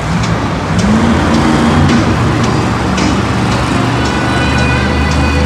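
Monster truck's supercharged V8 engine revving up about a second in and running hard as the truck drives across the dirt arena floor, with arena music faintly behind.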